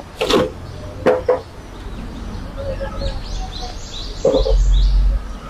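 Clicks and knocks of an inverter welding machine being handled and plugged in, with small birds chirping in a quick series near the middle. A loud low rumble comes about four and a half seconds in.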